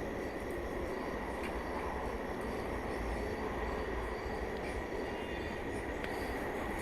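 Steady rumbling background noise with a faint high whine running through it.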